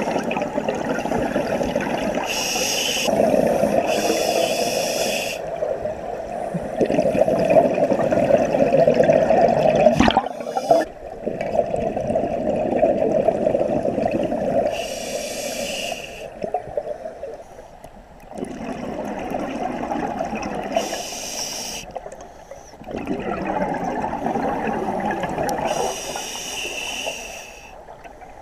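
Scuba diver breathing through a regulator underwater: several short hissing inhales alternate with long bubbling exhales. There is a sharp click about ten seconds in.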